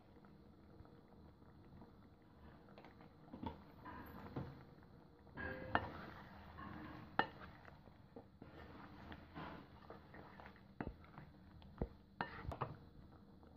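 Red silicone spatula stirring chunks of mutton in a nonstick frying pan, with irregular scraping and sharp knocks and clicks against the pan starting about three seconds in.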